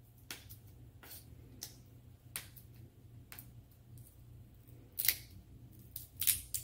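Plastic wrapping on an L.O.L. Surprise ball crackling and crinkling as a layer is peeled off by hand, in scattered faint short crackles, the loudest about five seconds in and again near the end.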